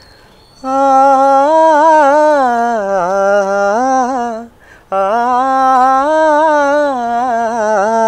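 A man humming a gliding melody in two long phrases, with a short break for breath about halfway through.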